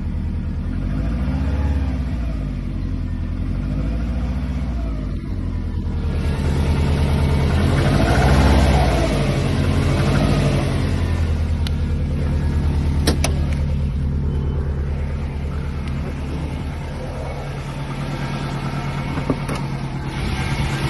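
Subaru EJ205 turbocharged flat-four engine revved up and down about four times, then idling steadily for the second half, with a terrible knocking sound that the owner suspects may be piston slap or damaged crankshaft bearings.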